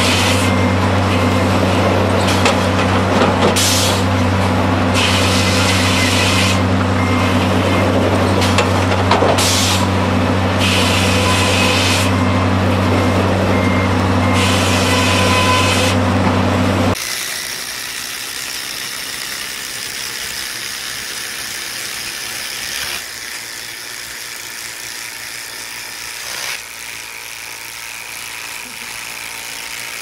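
Heavy wood-processing machinery running with a steady low hum and repeated bursts of hiss every second or two. More than halfway through it cuts off suddenly to a quieter, steadier machine sound.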